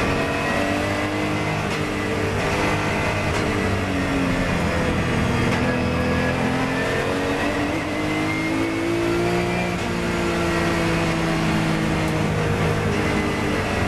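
Porsche 997 GT3 Cup race car's flat-six engine, heard from inside the cockpit, lapping a circuit at speed. The engine note falls as the car slows for a corner and climbs again under hard acceleration.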